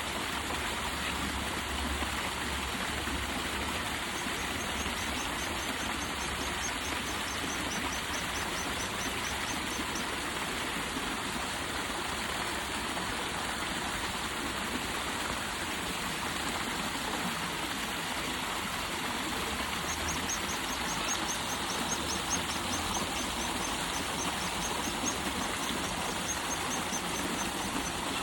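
River water rushing and splashing steadily. Twice a rapid run of short, high chirps rises over it.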